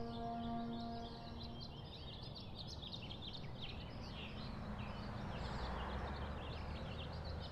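Many small birds chirping in quick, overlapping calls over a steady background hiss, while held musical tones fade out during the first second or two.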